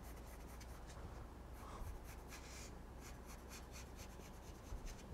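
Faint scratching of a pencil drawn across a wooden board in many short strokes, marking out a curved cutting line.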